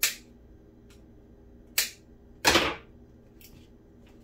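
Kitchen tongs being worked open and snapped shut: three sharp clacks, one at the start, one a little under two seconds in and a longer one about half a second after that.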